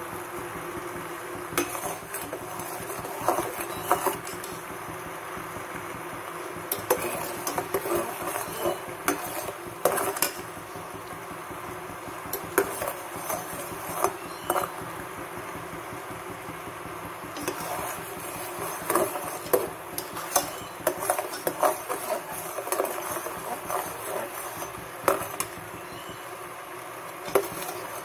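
A spatula stirring a pan of bubbling palm-jaggery syrup and sesame, scraping and knocking against the pan in irregular clusters over a steady hiss.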